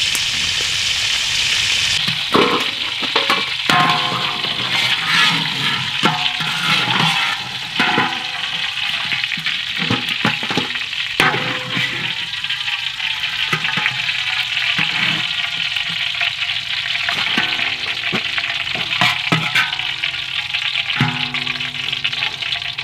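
Oil sizzling and frying in a large wok, with short clinks and scrapes of a metal spatula against the metal.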